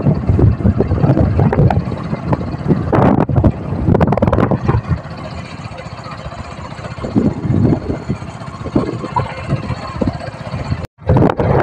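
Wind buffeting the microphone in uneven gusts, strongest low down. The sound drops out for an instant near the end.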